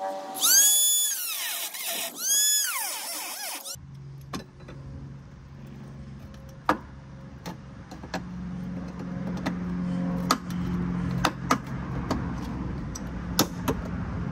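Milwaukee cordless cut-off tool whining as its wheel cuts into a metal bracket, the pitch rising and falling twice before it stops. After that comes a steady low hum with scattered sharp metal clicks from pliers working the cut piece.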